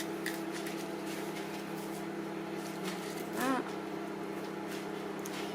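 A steady low hum at one fixed pitch, with a brief wavering voice about three and a half seconds in.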